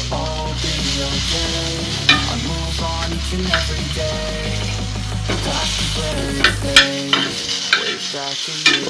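Chillies, garlic and tomato sizzling in a hot pan as they are roasted until slightly charred, stirred with a metal spoon that clicks and scrapes against the pan several times.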